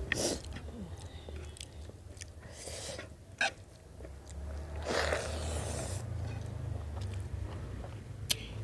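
Close-miked chewing and biting of food, with scattered small clicks and a sharper sound about three and a half seconds in.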